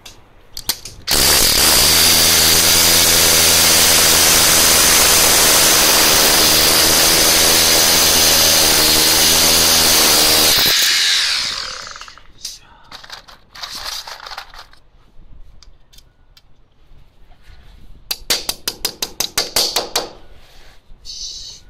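A handheld power tool runs steadily at full speed for about ten seconds, then winds down. Scattered scraping and rubbing strokes follow, with a quicker run of them near the end.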